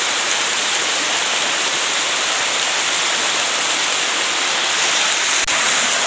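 A small waterfall cascading down a stepped face of rock, a steady rush of falling and splashing water.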